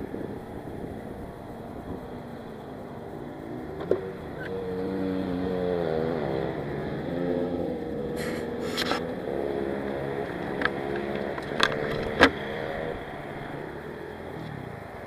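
An engine running with its pitch rising and falling, from a few seconds in until near the end, with several sharp clicks and knocks.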